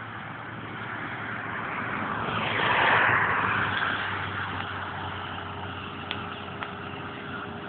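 Scooter running at steady cruising speed, its engine a faint steady drone under a rushing noise. A louder rush swells and fades about three seconds in.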